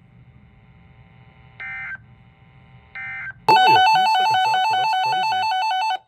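RadioShack weather alert radio giving two short buzzy bursts of digital alert code, then sounding its loud warbling alarm, two tones alternating rapidly, which cuts off abruptly near the end: the radio signalling an incoming weather alert.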